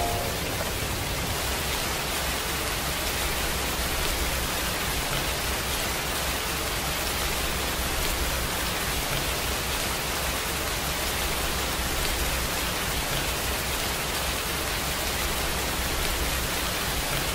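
Steady, unchanging rain-like noise with no music over it: the masking bed of a subliminal audio track.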